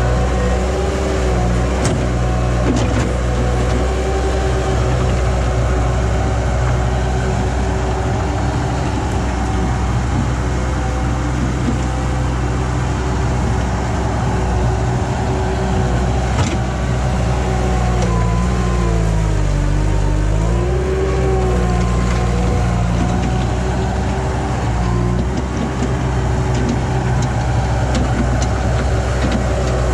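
Skid steer engine running steadily while working a 4-in-1 bucket in dirt. About two-thirds of the way through its pitch sags and recovers, as when the hydraulics take a heavy load.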